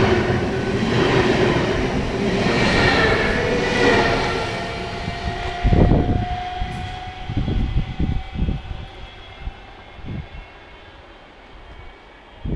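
Double-deck electric multiple unit running past close by: a rushing rumble with several whining tones over it, fading away after about four seconds. After that, a few irregular low thumps and knocks.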